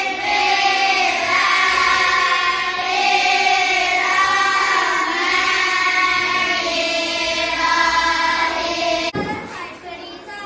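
A class of schoolchildren chanting a prayer together in unison, with long held, gliding notes. The chant breaks off about nine seconds in.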